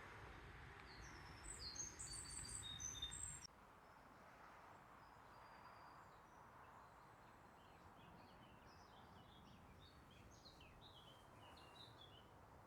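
Small birds chirping faintly in short, high calls. A low rumble under the first few seconds stops abruptly, and a quick run of twittering chirps comes near the end.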